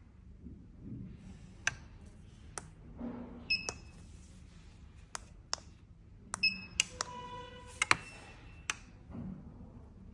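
Sharp clicks from remote-control buttons and an RF gate and garage-door receiver, with short high electronic beeps from the receiver a couple of times. Near the end comes a longer beep of several tones, about a second long.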